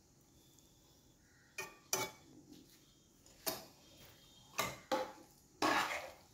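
A metal spoon knocking against the side of a nonstick pan as cooked rice is spooned in, six sharp clinks spread over the few seconds, the last one longer.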